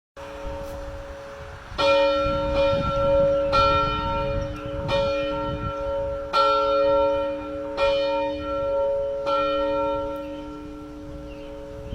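A single church bell being rung, struck about six times at roughly one-and-a-half-second intervals. Each stroke rings on into the next, and the hum fades slowly after the last stroke.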